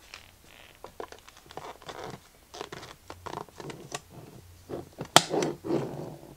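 Rustling and crinkling of plastic wrap as gloved hands handle a wrapped wristwatch in its presentation case, with a sharp click a little after five seconds.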